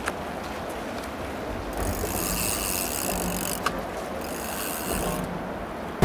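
Fishing reel being wound in two spells of whirring, the first about a second and a half long and the second shorter. A sharp click comes between them.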